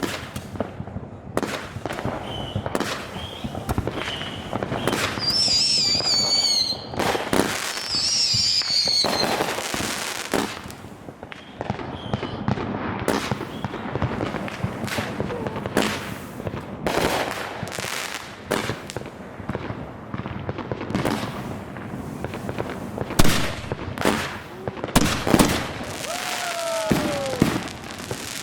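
Consumer fireworks display: a rapid, continuous string of bursts and reports from 200-gram cakes and shells. High warbling whistles are heard twice, about a fifth and a third of the way in.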